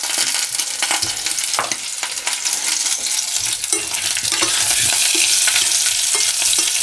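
Chunks of smoked bacon sizzling and crackling in hot oil in an enamelled saucepan as their fat renders, with potato pieces dropped in and stirred with a spoon. The sizzling grows louder about halfway through.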